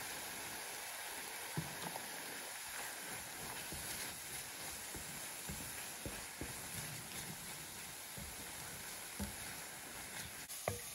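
Tomato puree sizzling in a hot enamelled cast-iron pan of curry paste and spices, stirred with a wooden spoon that knocks and scrapes against the pan now and then.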